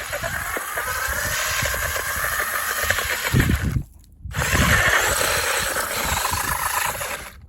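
RC car motor whining as it drives, with knocks and rattles of the chassis over the ground. The sound cuts out briefly about four seconds in, then the whine picks up again.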